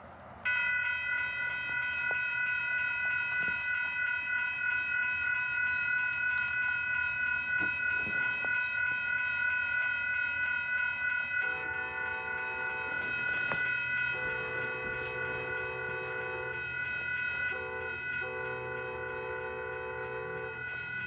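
A railroad crossing signal sounds a steady high ringing tone that starts suddenly about half a second in. About halfway through, a multi-tone train horn joins it, sounding the grade-crossing pattern of long, long, short, long.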